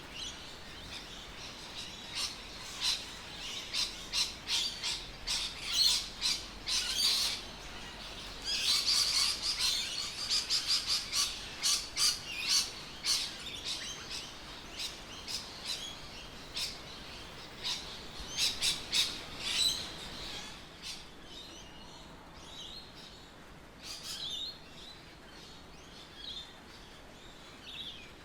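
Birds chirping: many short, high calls in quick succession, thinning out after about twenty seconds to scattered calls.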